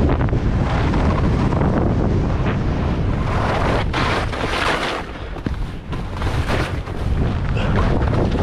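Wind buffeting a GoPro's microphone during a fast ski descent, mixed with the hiss and scrape of skis on hard, wind-packed snow. A louder scraping rush comes about four seconds in, followed by a brief quieter spell.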